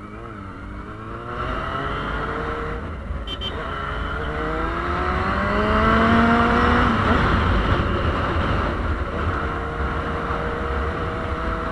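Yamaha Fazer 600's inline four-cylinder engine pulling up through the revs under acceleration, with a gear change about three seconds in and another near seven seconds, then settling to a steady cruise. Wind rumble on the microphone runs underneath.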